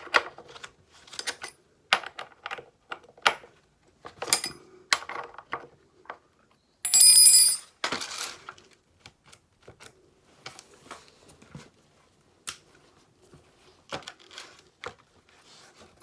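Metal clicks and clinks of a hand tool working the bar nuts on a Stihl chainsaw as they are loosened for a chain adjustment, with one loud, harsh metallic scrape lasting about a second midway.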